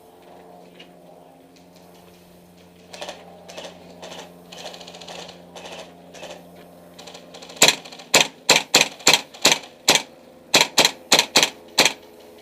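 Airsoft electric rifle (KWA AKG 74M) firing a string of single shots, a loud sharp crack each time, about three a second. The shots begin some seven and a half seconds in, after a stretch of quiet rustling.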